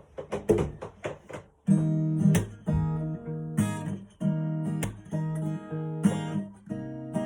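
Acoustic guitar intro: a few quick, short muted strokes, then ringing chords strummed in a steady rhythm.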